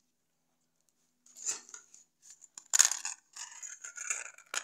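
Crumpled aluminium foil dish being handled, crinkling, with small removed electrolytic capacitors rattling and clinking in it. The crackling starts about a second in and comes in irregular bursts, loudest a little before the middle.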